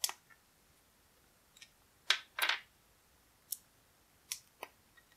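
Small plastic toy missile pieces being snapped off a plastic sprue by hand: a scattering of short, sharp clicks and snaps, about seven of them, the loudest a pair around two seconds in.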